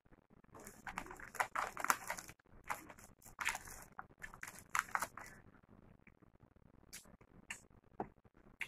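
Crinkling of a foil potato chip bag as a hand rummages inside it for chips: a dense run of sharp crackles for a few seconds, then scattered crackles and clicks.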